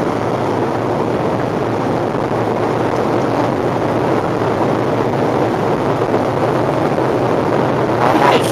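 A car wading through deep floodwater, heard from inside the cabin: a steady rush of water churning against the body and tyres.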